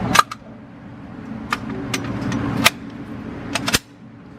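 Gunshots at a shooting range: about eight sharp cracks at irregular spacing, over a steady low rumble.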